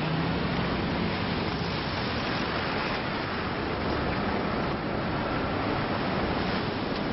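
Steady rush of sea surf breaking on a sandy beach, with a car's low engine hum fading out in the first two seconds as it drives past.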